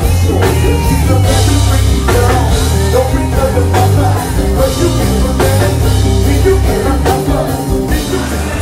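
Live band playing loudly, with a singer over drums, congas and a strong, heavy bass line.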